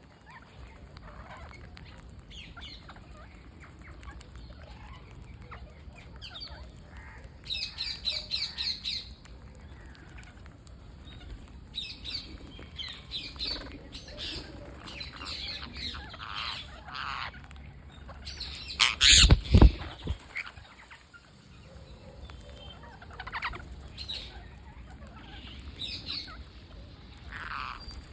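Green parrots squawking and chattering in short, scattered calls while they feed, with one quick run of repeated notes, and a loud burst about two-thirds of the way through.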